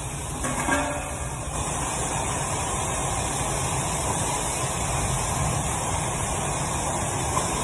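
A pressure washer wand spraying water against a car's body: a steady hiss of spray over a low, even hum. A brief louder noise comes under a second in.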